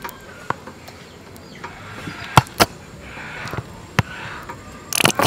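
Plastic squeeze bottle squirting chili sauce into small ceramic dishes, with soft squelching and a few light clicks and knocks, a louder knock near the end.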